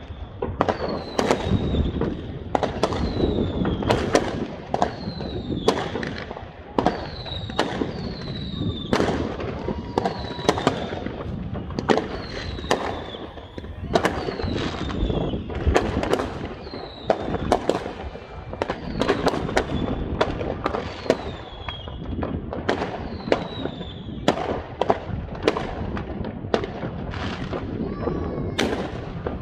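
Fireworks display: a steady run of aerial shell bursts, about one sharp bang a second, many followed by a short falling whistle, over a continuous rumble of further explosions.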